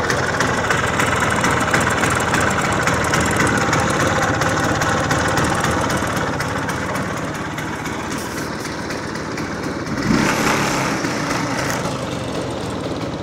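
Vespa PE 200 scooter's single-cylinder two-stroke engine idling steadily, with a brief louder surge about ten seconds in.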